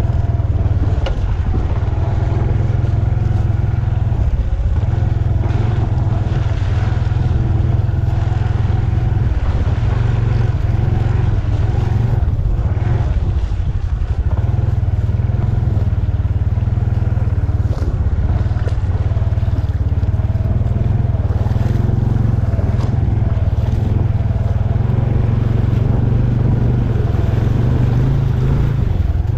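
Small motor scooter riding slowly over a rough dirt track: steady engine running under a loud, constant low rumble.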